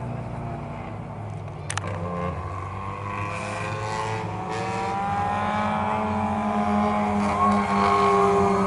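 Engines of several small Lightning Bug class race cars running on the track, their pitches shifting as they rev and ease off, growing louder as the cars come nearer. A brief sharp click about a second and a half in.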